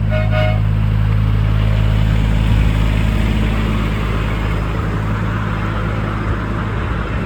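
Two-note horn on a miniature T-class locomotive gives a last short toot that cuts off about half a second in. The locomotive's engine runs steadily underneath, and from about two and a half seconds a rushing noise builds up over it.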